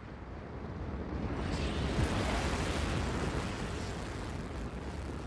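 A deep, rumbling noise swell that builds over the first two seconds, reaching up into a hiss, then holds steady.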